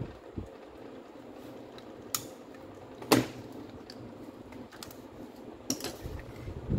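A few sharp metallic clicks and clinks, the loudest about three seconds in, as small metal parts at the chuck end of a Makita M8700 rotary hammer are worked with pliers and a thin pin.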